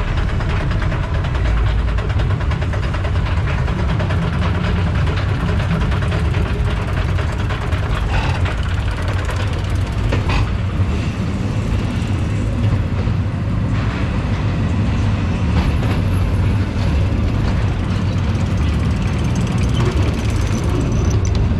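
Reverchon spinning coaster car climbing the chain lift with a steady clatter, then rolling along the steel track through tight curves with a loud, continuous wheel rumble.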